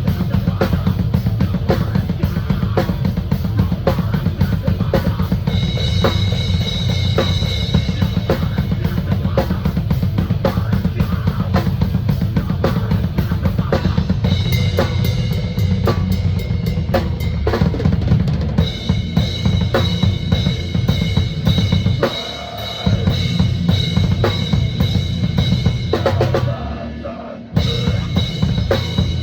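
Drum kit played hard and fast in a heavy-metal style: a dense stream of rapid kick-drum strokes under snare hits and ringing cymbals, with brief breaks about two thirds of the way in and again near the end.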